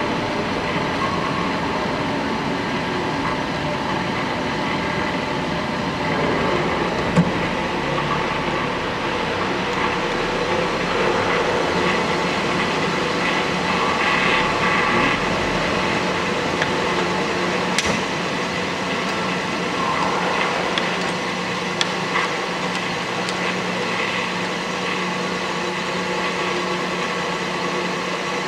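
Woerner B 13 S bench drill running: a steady electric-motor and spindle-drive hum with several steady tones, broken by a few sharp clicks.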